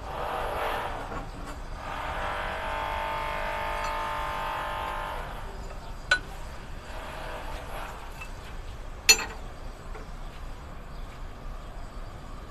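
Two sharp metallic clinks of hand tools on metal engine parts, about six and nine seconds in, the second louder, while a steering pump is being unbolted from a MAN diesel truck engine. Before them a steady drone of several tones runs for about three seconds in the background.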